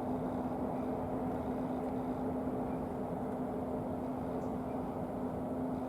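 Steady low mechanical drone with a constant hum, unchanging in level throughout, like an engine running steadily.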